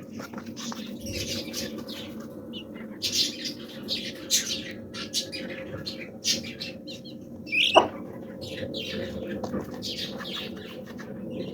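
Sixteen-day-old Aseel chicken chicks peeping over and over in short, high calls, above a steady low hum. One louder call stands out about eight seconds in.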